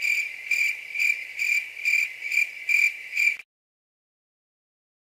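Cricket chirping sound effect, the meme cue for an awkward silence: a steady high-pitched chirping that pulses about twice a second, then cuts off suddenly about three and a half seconds in, leaving silence.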